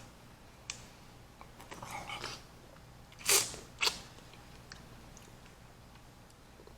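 Someone eating kiwi fruit close to the microphone: soft wet chewing and mouth sounds, with two short, louder smacks a little over three seconds in.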